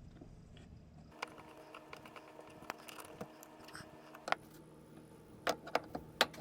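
Scattered small clicks and taps of hand work on the dishwasher's water supply connection, a few single ticks and then a quicker run of clicks near the end, over a faint steady hum.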